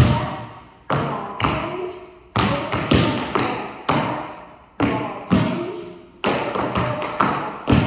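Metal-plated tap shoes striking a hard studio floor in a tap dance routine: clusters of quick sharp taps and heavier stamps in a repeating rhythm.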